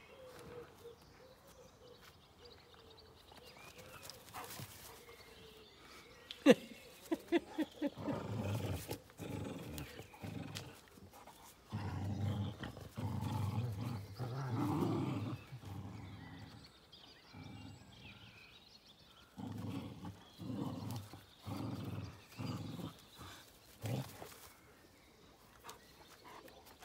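Two dogs growling in play while tugging a rope toy, in low, rough bursts of a second or two from about eight seconds in, easing off near the end. One sharp snap shortly before the growling starts.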